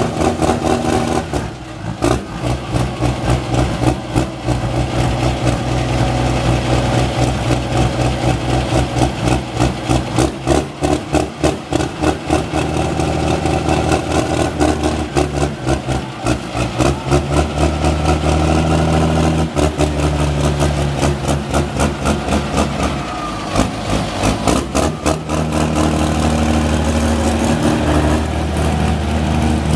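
Large tractor diesel engine running hard and continuously at a tractor pull, with its pitch dipping briefly a couple of times.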